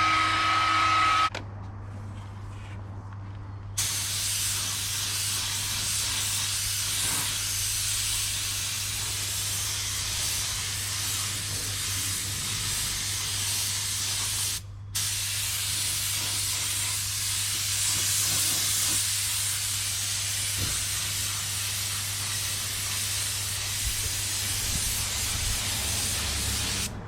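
A blower's whining motor cuts off about a second in. From about four seconds in comes a steady hiss of paint being sprayed, broken once by a brief pause about halfway through, over a low steady hum.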